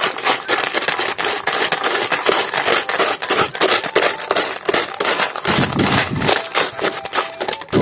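Sand being dug and scraped away: gritty crunching made of a dense, continuous run of small crackles.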